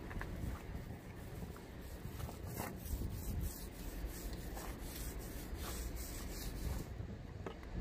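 A small laminating roller rubbing back and forth over resin-wetted fiberglass mat, a short swish with each stroke, over a low steady rumble.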